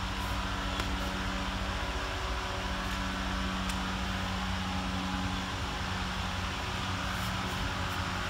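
Steady machine hum with a low rumble and a faint held tone underneath: the background noise of a body shop.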